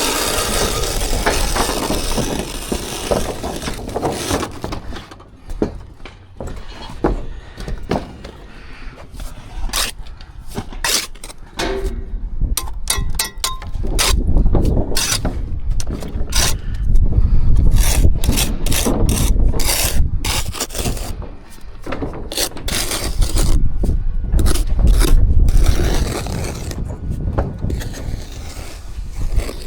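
Steel hand tools scraping and tapping on mortar and brick, with many sharp clicks and scrapes over a heavy low rumble that is loudest in the second half.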